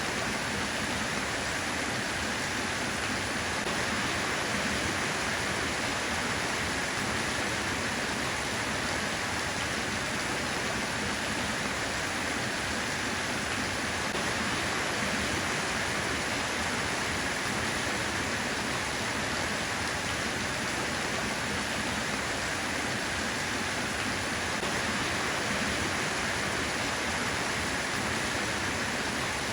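Steady rain falling, a dense even hiss with no distinct drops or breaks.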